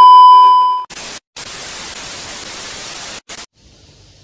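TV colour-bars test-card transition sound effect: a loud, steady, high beep of a test tone lasting just under a second. It is followed by TV static hiss for about two seconds, which breaks off briefly twice.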